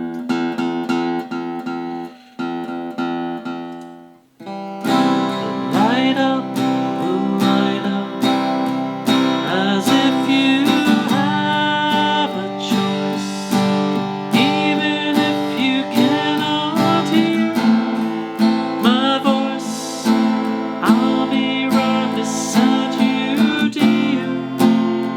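Freshly restrung Fender acoustic-electric guitar being played: ringing chords at first, dying away about four seconds in, then a continuous picked melody with bent notes. The new strings are still stretching and drifting out of tune.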